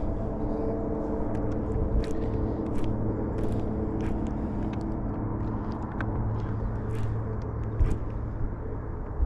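Steady hum of a bass boat's electric trolling motor, with light clicks scattered through it.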